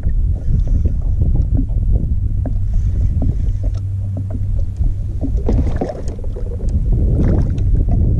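Steady low rumble of water and wind around a pedal-drive kayak, with a low hum for a few seconds and many light scattered clicks and knocks. Some brighter splashy noise comes about two-thirds of the way in.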